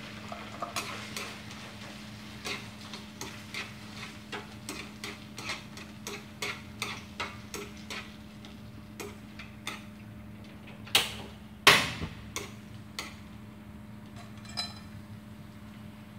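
Chopsticks clicking against a nonstick frying pan as liver is stir-fried in oil with garlic, about two taps a second, with faint sizzling underneath. Two louder knocks come a little past halfway, then a few more light taps.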